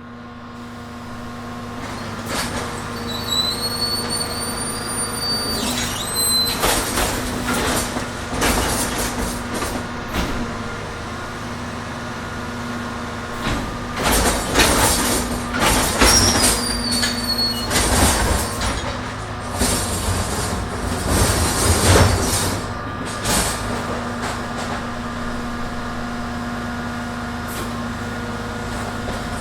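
Garbage truck engine running steadily while collecting trash, with bursts of loud clattering and banging from the loading and emptying of bins. There are brief high squeals twice, a few seconds in and about halfway through.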